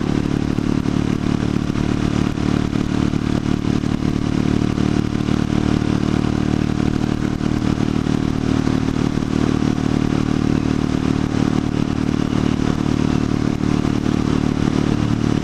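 Buell Blast's single-cylinder engine running steadily under way, with a constant rush of wind noise on the microphone.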